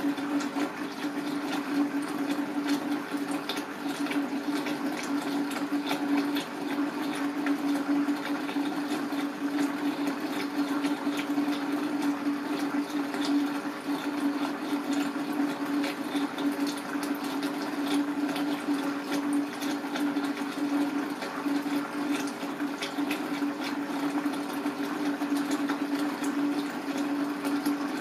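A small motor or pump humming steadily at one low pitch, with fine irregular crackling over it.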